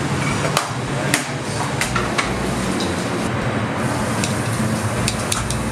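Sharp clicks and clinks of hot stone slabs and metal tongs being handled at a grill, about eight in all and several close together near the end, over a steady hiss.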